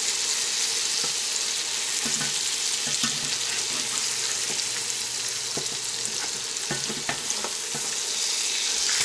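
Potato cakes frying in hot oil in a skillet, giving a steady sizzle. Now and then a metal spatula clicks and scrapes against the pan as it works under a cake.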